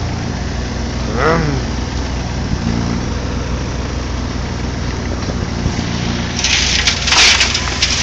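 Site dumper's diesel engine running steadily, with a mini digger working alongside. A louder rattling clatter comes about six and a half seconds in as the digger loads earth into the dumper's skip.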